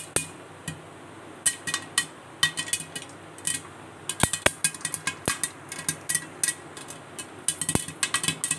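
Popcorn kernels popping in hot oil in a pan under a glass lid: sharp, irregular pops, sometimes several in quick succession.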